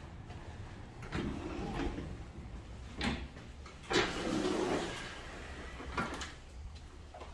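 Automatic glass entrance doors opening, with a few knocks and clunks as they move and stop, the loudest about four seconds in.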